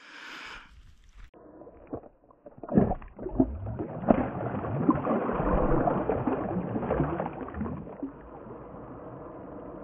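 Water sloshing and gurgling, with a few knocks early on; it swells louder for a few seconds in the middle, then settles to a steady, quieter wash.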